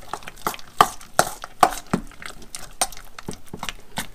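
A utensil stirring a thick cream cheese and pecan mixture in a stainless steel bowl. It clacks and scrapes against the metal in irregular clicks, several a second, the sharpest about a second into the stirring.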